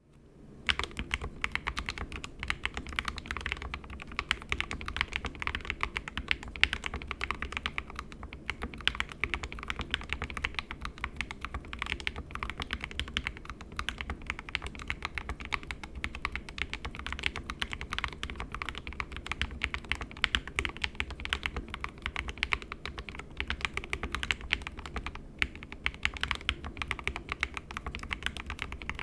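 SK61 mechanical keyboard with lubed 62g Gateron optical red linear switches in an aluminium plate and stock keycaps, typed on continuously on a desk mat: a rapid, unbroken stream of keystrokes that starts just under a second in.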